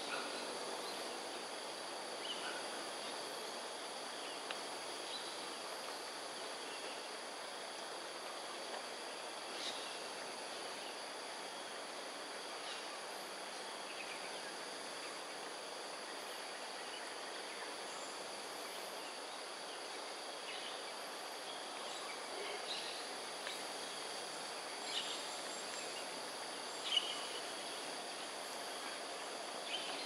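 Steady high-pitched insect trilling over a constant background hum, with a few short bird chirps and small clicks scattered through, the sharpest near the end.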